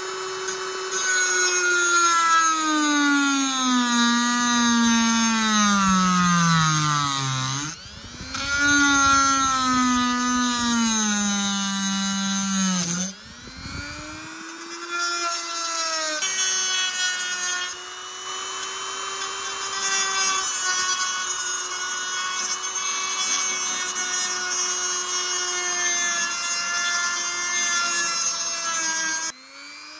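Handheld rotary tool with a small cut-off wheel grinding into thin knife-blade steel: a loud whine that sinks slowly in pitch, breaks off briefly about eight and again about thirteen seconds in, then runs steadier before stopping near the end.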